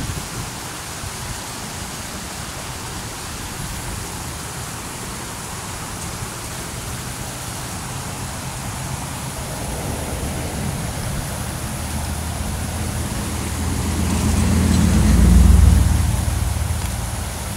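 Water rushing through a narrow granite-walled channel, a steady hiss. From about halfway a motor vehicle approaches and passes close by, its low rumble swelling to the loudest point near the end, then easing.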